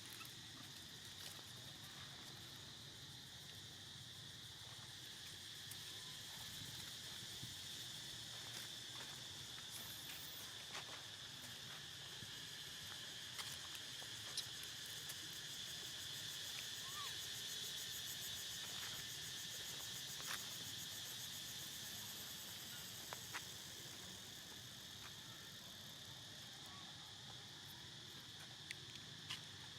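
Steady high-pitched insect chirring, swelling a little and easing off again, with a few faint scattered clicks and taps.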